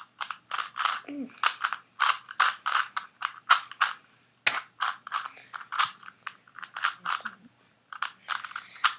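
Rubik's Cube being twisted by hand: quick runs of plastic clicks and clacks as the layers turn, several a second, with brief pauses between runs.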